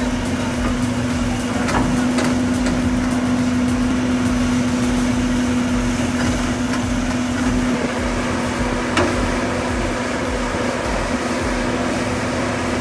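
Heavy-equipment diesel engine running steadily under load, with a constant whine and a couple of faint knocks.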